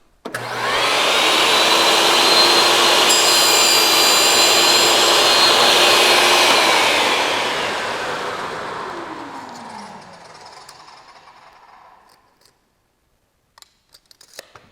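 SawStop table saw switched on and running at full speed while a test rip is cut through a board, then switched off, the blade spinning down with a falling hum over a few seconds. A few light knocks near the end.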